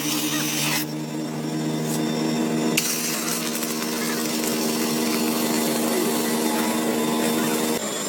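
A power tool running steadily with an even motor hum under a hiss of working noise. The hiss drops back about a second in, and the sound changes near the end.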